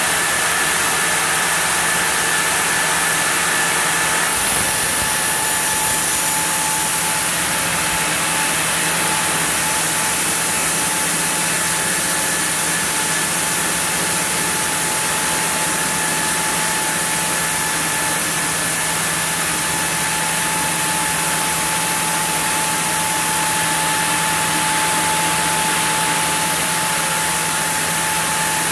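Sawmill saw running steadily through a block of zelkova hardwood: a continuous loud machine noise with a steady whine.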